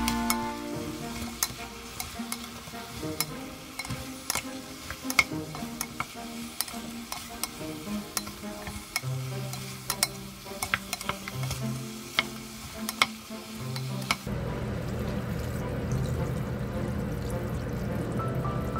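Wooden spatula stirring and scraping beef and radish pieces in a stainless steel pot as they fry, with a sizzle and many sharp clicks. About 14 seconds in, this gives way to a steady rush of water being poured into the pot.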